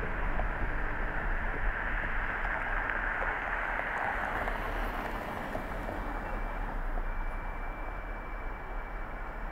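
Steady tyre and road noise with a low rumble from a car driving on a city street, easing off as the car slows to a stop. A faint thin high tone comes in about five seconds in.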